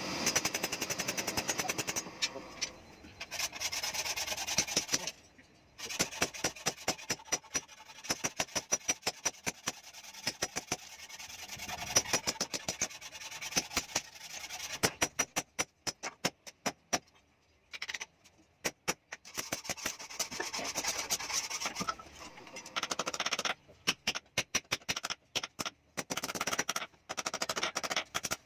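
Hand hammers striking red-hot steel on a steel post anvil, in runs of quick ringing blows separated by short pauses.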